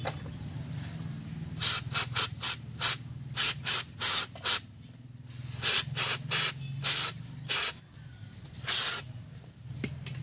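Short bursts of spray hissing from a nozzle, about fifteen of them in quick groups, while brake parts are being cleaned.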